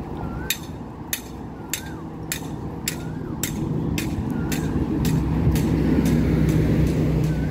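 Road traffic beside a beachfront promenade: a passing vehicle's engine hums, growing louder from about halfway through and peaking near the end. Under it run sharp regular footsteps on the paving, nearly two a second, and a short rising-and-falling chirp repeats about every second and a half.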